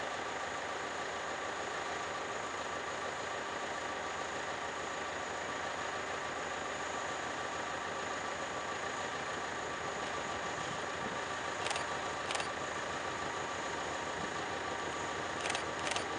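Narrow-gauge diesel locomotive engine running steadily in the distance as the train approaches. Four short sharp clicks, in two pairs, sound in the second half.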